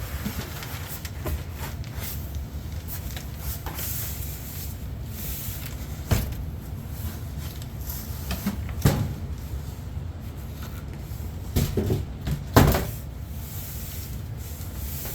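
A monitor's cardboard box and packing being handled as the monitor is lifted out: scattered knocks and scrapes, the loudest a cluster near the end, over a steady low hum.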